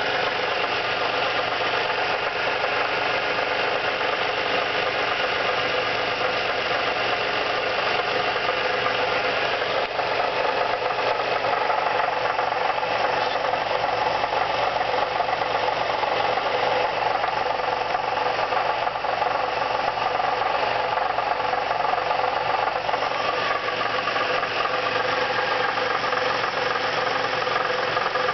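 2002 Nissan Maxima's V6 engine running at a steady speed with a fast, continuous rattle from under the hood. The cause is unexplained: compression is even across all six cylinders and the oil pressure light stays off.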